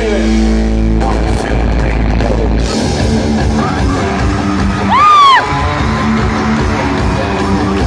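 A live pop-rock band plays through an arena PA, with electric guitars and drums, heard from within the crowd. About five seconds in, a short loud yell rises and falls in pitch and stands out as the loudest sound.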